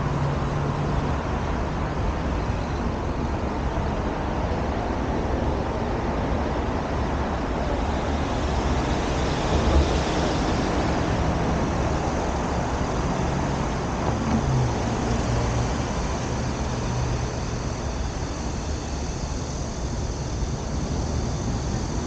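Steady city road traffic: the continuous hum of car engines and tyres on a multi-lane road.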